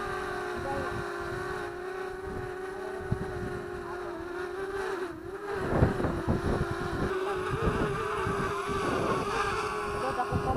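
DJI Spark drone's propellers hovering with a steady, even-pitched whine that wavers slightly. Gusty wind rumbles on the microphone underneath.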